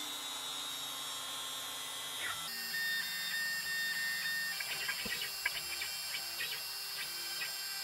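DeWalt router spindle on a hobby CNC machine running with a steady high whine. About two and a half seconds in, the sound shifts and short, irregular whirring bursts join it as the gantry moves and the bit cuts into the wood.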